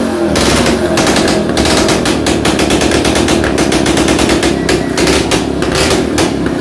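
Custom Vespa chopper scooter's engine running loud through its large open exhaust, firing as a rapid, dense rattle of sharp pops over a steady engine note.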